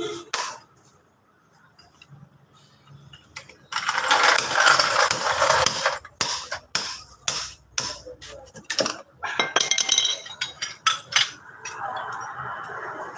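Metal tapping and clinking as a hammer strikes a long screwdriver to prise out a transaxle axle oil seal, a stubborn seal with a steel case. About four seconds in comes a loud, dense two-second stretch of noise, followed by a run of separate sharp knocks and taps.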